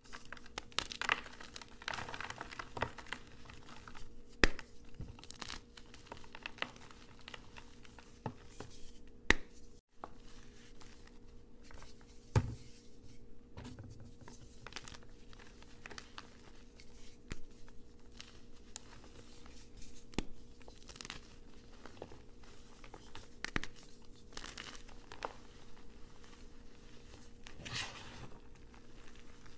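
Blocks of gym chalk crunching and crumbling as they are squeezed by hand and crushed underfoot: a continuous gritty crackle with a few sharper snaps as pieces break.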